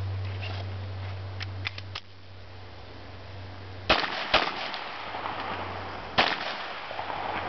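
Pistol shots: two in quick succession about four seconds in, then a third about two seconds later. A few faint sharp ticks come earlier.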